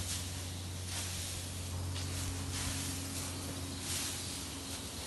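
Straw bedding rustling and swishing as it is forked up and shaken out, in repeated swishes about once a second, over a steady low hum.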